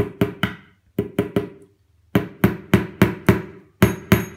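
A hammer tapping a small nail through a metal mounting bracket into the back of a dartboard. About fourteen quick strikes come in short runs, each followed by a brief ring.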